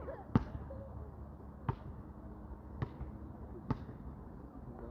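A basketball bouncing on a court, four sharp bounces a second or so apart.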